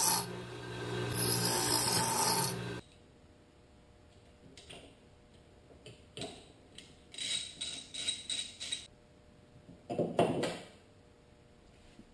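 Bench grinder grinding a small metal part, a loud high-pitched grinding noise that cuts off abruptly under three seconds in. Then quiet shop work on a CNC router gantry: a short run of evenly spaced clicks, about four a second, from a hand wrench, and a knock about ten seconds in.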